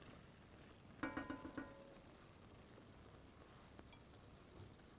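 Near silence, with a brief faint musical chord of steady tones about a second in and a single faint tick near the end.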